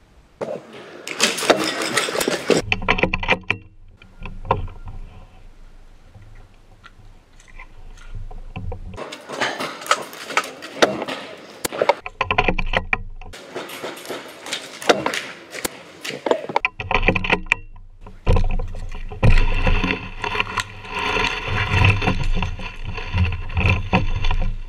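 Close handling noise from the player's own movement: rustling and scraping of clothing and kit against the camera's microphone, in stretches a few seconds long, with scattered clicks.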